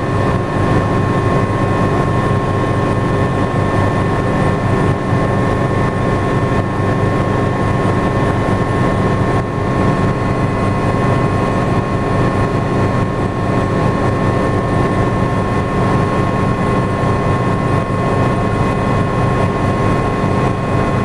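Helicopter cabin noise in flight: a steady drone of engine and rotors with a high, steady whine over it.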